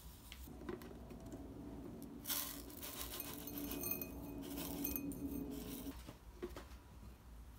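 Metal spoon clinking against a ceramic bowl, with the light rustle of chili powder and sea salt being spooned in; the clinks come thickest from about two to five and a half seconds in.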